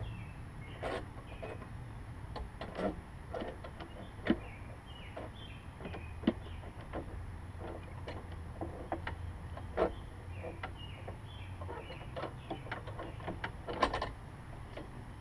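Irregular clicks and knocks of hand work on a Lawn-Boy mower's self-propel control as its traction adjustment is set, with a few sharper knocks, over a steady low hum.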